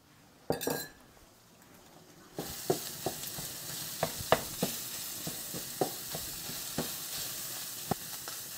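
Food sizzling in a frying pan while a utensil stirs it, knocking against the pan about once or twice a second. The sizzle starts abruptly about two and a half seconds in, after a quiet stretch with one brief clink.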